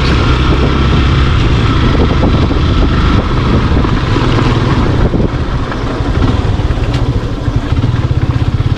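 Single motorcycle engine running at low road speed over rough gravel, with wind and road noise. About five seconds in the throttle eases and the engine drops to a slower, evenly pulsing low-revs run.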